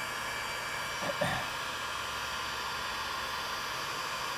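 Handheld electric heat gun running: the steady rushing blow of its fan with a faint motor whine, aimed at a vinyl decal to soften its adhesive.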